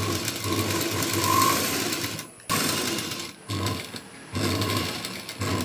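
Sewing machine stitching a folded hem along the edge of a cloth, running in about five spurts of half a second to two seconds with short stops between.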